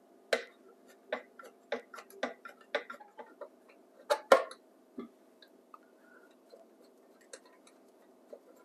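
A screwdriver working the screws out of the bottom of a 1953 Zenith L622-G clock radio's plastic cabinet: a run of sharp clicks and taps, loudest about four seconds in, thinning out to a few faint ticks after about five seconds.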